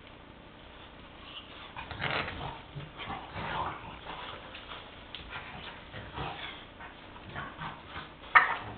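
Two French bulldogs make short, irregular bursts of sound while they play-fight. A louder, sharp sound comes near the end.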